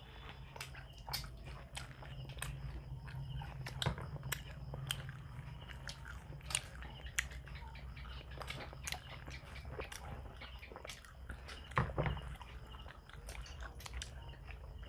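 People chewing and biting food close to the microphone, with frequent short, sharp mouth clicks and smacks over a low steady hum.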